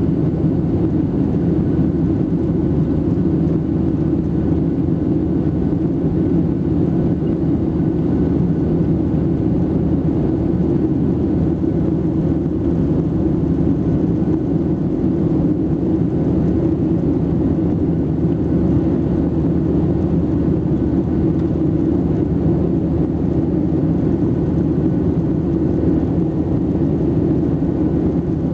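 Steady cabin noise aboard a Boeing 737-700 in flight: an even low rumble of its CFM56-7B jet engines and airflow past the fuselage.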